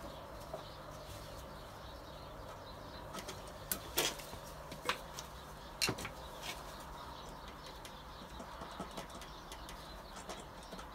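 A few sharp clicks and light knocks of metal parts as the cam cover is worked free and lifted off a Toyota 4A-GE twin-cam engine, over a faint steady hum.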